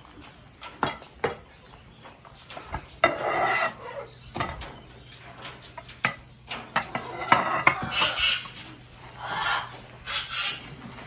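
Ceramic feeding bowls and a spoon knocking and scraping on a wooden table as bird food is dished out, with several sharp clinks in the first half. Aviary birds call now and then.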